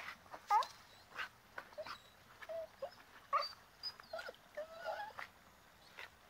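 An excited dog whining and yelping in short, high, pitch-bending calls, about one or two a second.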